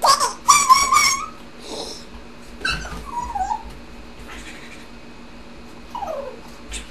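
A girl's high-pitched, wordless squealing and whining vocal noises, animal-like: a loud squeal in the first second, then fainter falling whines about three seconds in and again near the end.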